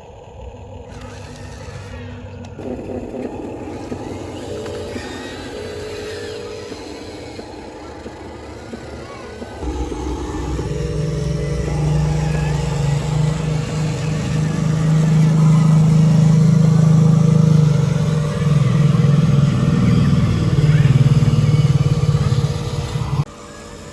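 Radio-controlled model vehicle running, its motor sound growing markedly louder about ten seconds in, swelling, then cutting off abruptly near the end.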